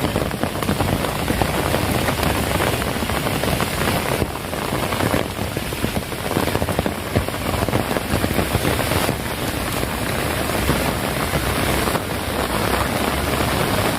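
Heavy rain falling and striking surfaces: a steady, dense hiss of many drops at an even level.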